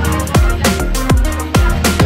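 Electronic background music with a steady beat of deep kick drums and sharp snare or hi-hat hits over held synth tones.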